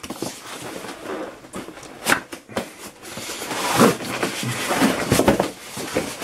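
Cardboard box being opened and handled: cardboard rubbing and scraping as the lid and packing are worked loose, with a few sharp knocks.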